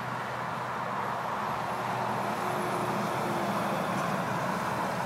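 Steady hiss of highway traffic, swelling a little midway through as a vehicle passes.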